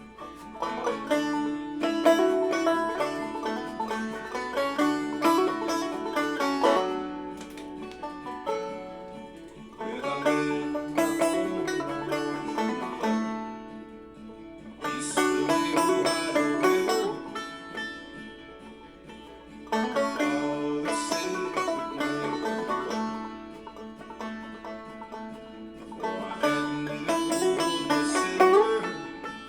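Clawhammer banjo, capoed at the second fret, playing a song's chord progression out of the C position in repeating phrases a few seconds long.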